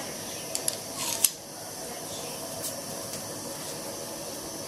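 Butter dropped into a hot nonstick frying pan: a few light taps about a second in, then a faint steady sizzle as it starts to melt.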